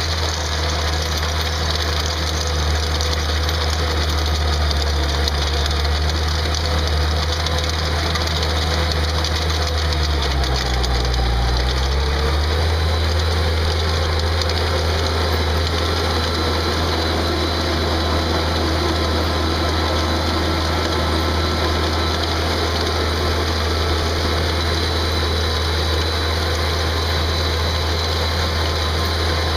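Engine of a Ditch Witch 8020 plow/trencher/backhoe running steadily. About ten seconds in, its pitch dips briefly and comes back up.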